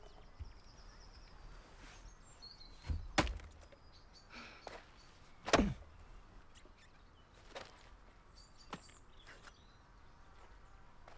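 An axe splitting firewood: a few sharp chops, two close together about three seconds in and the loudest about five and a half seconds in, then lighter knocks. Birds chirp between the blows.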